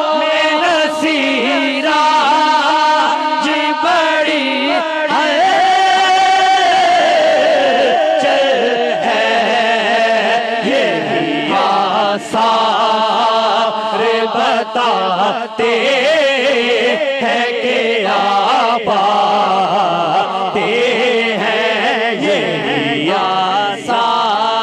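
A man singing a naat, an Urdu devotional poem, into a microphone in a long, wavering melody with drawn-out held notes. Other men's voices sing along beneath him.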